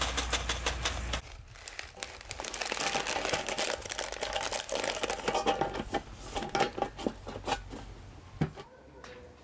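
A foil tea packet crinkles as loose black tea is shaken out of it, then a cardboard tea box is pressed flat and folded by hand, crackling and crinkling for several seconds before a single knock near the end.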